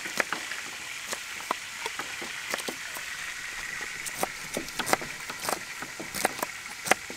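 Knife blades chopping on round wooden chopping blocks as long beans and other vegetables are cut: quick, irregular taps, several people chopping at once.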